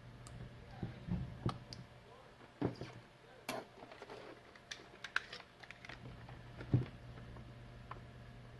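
Scattered clicks and knocks from a NOCO GB150 jump starter being handled and tested on a workbench, over a steady low hum.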